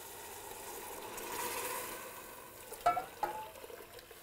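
Chicken stock poured from a stainless saucepan into a stockpot of sautéing onion, celery and carrots: a steady pouring and sizzling that swells about a second and a half in, with two short metallic clinks about three seconds in.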